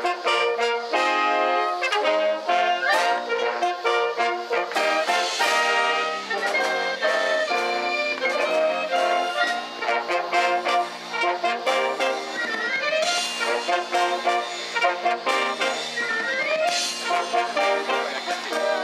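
School wind band playing a lively piece, led by brass, with two rising swoops in the melody, about two thirds of the way through and near the end.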